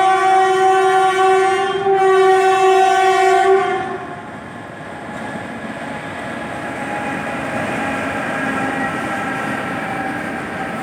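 Electric freight locomotive's air horn blowing a long steady note, breaking off briefly about two seconds in and stopping a little before four seconds in. The rolling rumble of a long loaded freight train's wagons going past follows.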